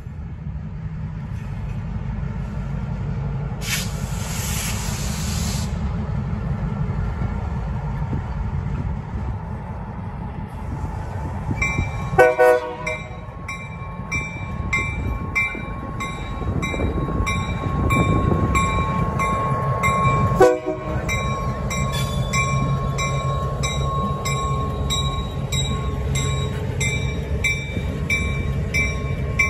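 Diesel switcher locomotive and a train of boxcars rolling slowly past, with a steady low rumble of engine and wheels on the rails and a hiss about four seconds in. From about twelve seconds in, a metallic ringing repeats about twice a second, and brief louder sounds come at about twelve and twenty seconds.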